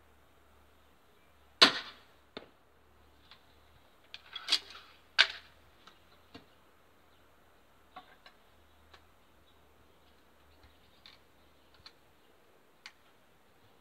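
EK Archery Cobra R9 pistol crossbow with a 110 lb bow firing once: a single sharp snap of the string release about a second and a half in. A lighter click follows, then a cluster of clicks and rattles a few seconds later and scattered faint ticks as the crossbow is handled.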